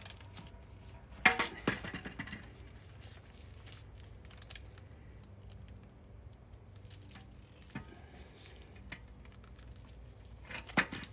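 Foil tape crinkling and crackling as it is handled and wrapped around a muffler, with a louder burst of crackling about a second in and another near the end.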